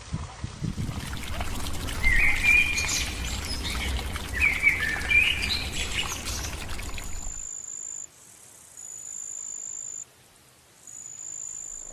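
Birds chirping and calling over an outdoor background hiss. The hiss cuts off, and three long, steady, high-pitched notes follow, each about a second long, with short gaps between them.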